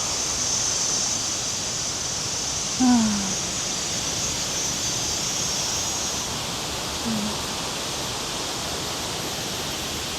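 Steady rushing of a rain-swollen river running close by. A short vocal sound cuts in briefly about three seconds in.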